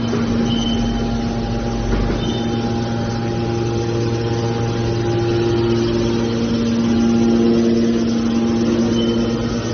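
Hydraulic scrap metal baler running, its power unit giving a steady hum and whine, with a deeper rumble in the first two seconds.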